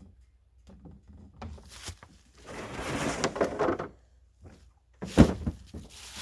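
Clattering and rustling as gear is handled, with one sharp knock about five seconds in.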